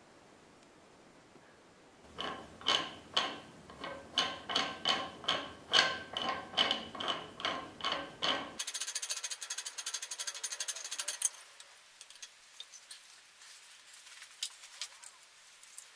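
Toyota hydraulic bottle jack being pumped by hand to raise its ram, a metallic clack with each stroke about twice a second. After about six seconds of pumping comes a short run of fast rattling clicks, then a few scattered clicks.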